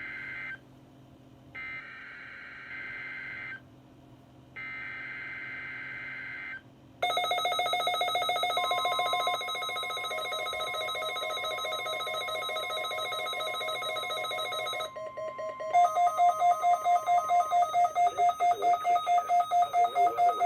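Emergency Alert System weekly test signal: three short screeching bursts of SAME digital header data about a second apart. Then a continuous buzzing alert tone with a steady single tone under it, turning about two-thirds of the way through into rapid beeping at about three beeps a second.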